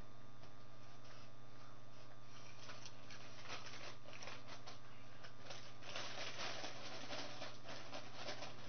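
Potato chip bag crinkling and rustling as a hand rummages in it for chips, starting a couple of seconds in and loudest near the end. A steady low hum runs underneath.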